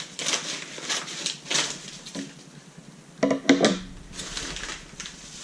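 Yellow padded paper mailer being torn open and pulled apart by hand: repeated rustling and crinkling of the stiff paper, loudest a little after three seconds in.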